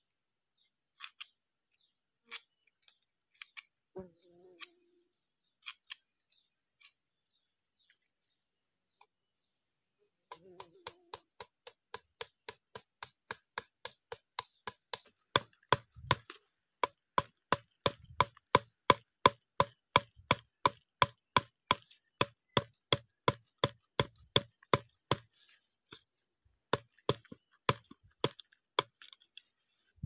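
Machete blade chopping notches into a small green bamboo tube: a few scattered knocks at first, then a fast, regular run of about three sharp strikes a second, thinning out near the end. A steady high insect drone runs underneath.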